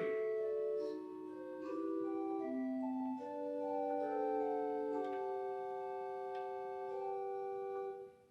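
A 1979 Austin pipe organ plays a slow chordal passage, with sustained notes moving in several voices. It breaks off shortly before the end, and the church's reverberation trails after it.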